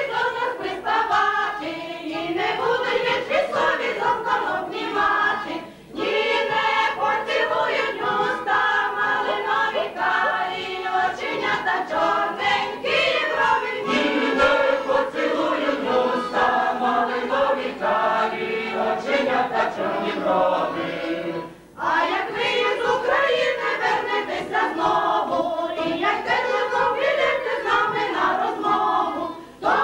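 A mixed choir of men and women singing together, with brief breaks between phrases about six seconds in and again near twenty-two seconds.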